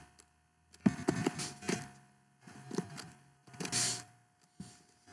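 Computer keyboard typing in several short bursts of quick keystrokes, over a faint steady hum.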